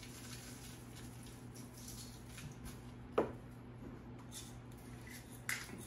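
Faint soft pattering of salt and pepper being shaken and patted onto a raw tomahawk ribeye, with one sharp knock about three seconds in, over a low steady hum.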